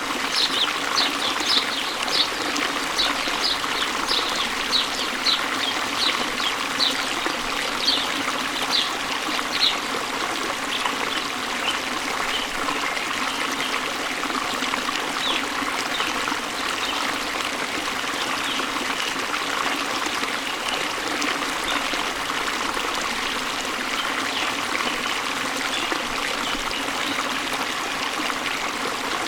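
Steady rush of a waterfall and flowing stream. Over it a bird chirps in short, high notes, about two a second, for the first ten seconds or so, then more faintly and sparsely.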